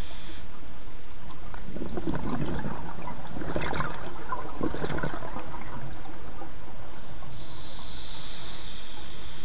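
Scuba diver breathing through a regulator underwater. An inhalation hiss stops about half a second in, and a long burble of exhaled bubbles follows for about four seconds. Another inhalation hiss starts near the end.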